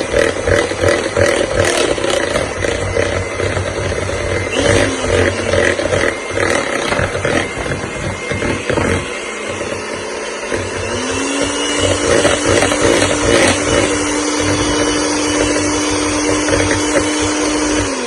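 Electric mixer running steadily, beating an egg into creamed butter and sugar for cake batter. About two-thirds of the way through, a steady motor whine comes in, and the mixer cuts off at the end.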